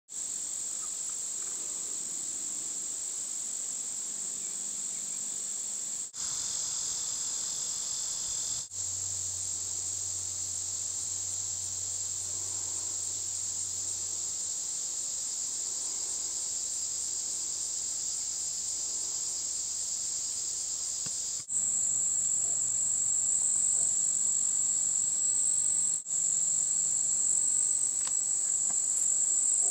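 Chorus of summer insects trilling steadily at a high pitch, cutting out briefly four times.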